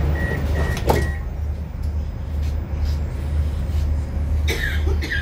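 Door-closing warning beeps of a Moscow metro 81-775/776/777 train, about three short high beeps a second, stop about a second in with a sharp knock as the sliding doors shut. A steady low hum from the train runs beneath, and there are two short high squeaks near the end.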